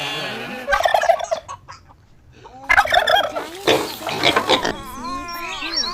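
Turkey gobbling in several bursts of rapid warbling calls, with a short pause about two seconds in.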